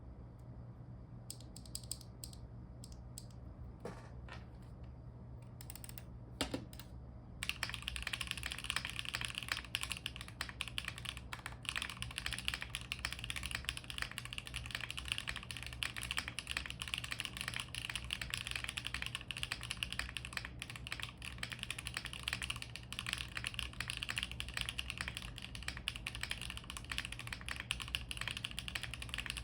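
Mechanical keyboard being typed on: a CIY GAS67 with a carbon fibre plate, stock HMX WJBY Lotus linear switches with the bump-on O-ring mod, no foam, and Dark Olivia doubleshot ABS Cherry-profile keycaps. A few scattered keystrokes come first, then fast, continuous typing from about seven seconds in.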